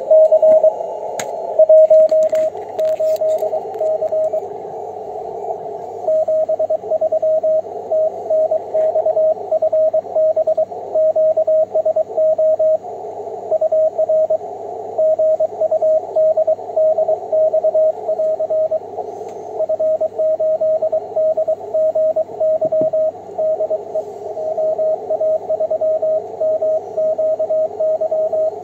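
Morse code (CW) from an amateur shortwave transceiver: a single tone near 600 Hz keyed on and off in dots and dashes, with a few short pauses, over the band-limited hiss of the receiver's CW filter. A few handling knocks sound in the first seconds.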